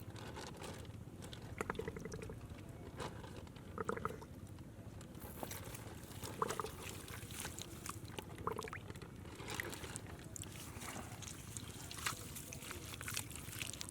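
Small, irregular splashes and squelches of hands working in shallow muddy water at an eel hole, with scattered soft clicks and a few slightly louder splashes about two, four and six and a half seconds in.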